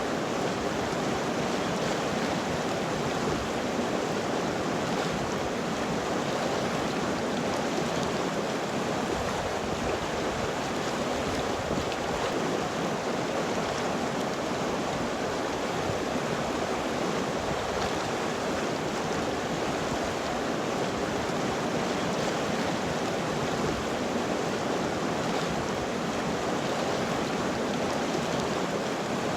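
River water flowing over rocks, a steady, even rushing with no change.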